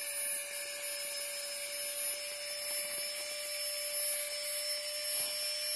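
Flextail Gear rechargeable electric air pump running with a steady whine, inflating a Sea to Summit Ether Light XT Extreme sleeping mat that is close to full pressure.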